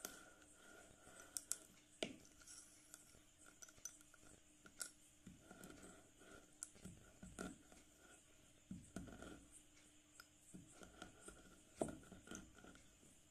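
Sticks of white school chalk snapping and crunching under a rolling pin, in faint irregular sharp cracks, with a low rumble of the pin rolling over the board between them; the sharpest cracks come about two seconds in and near the end.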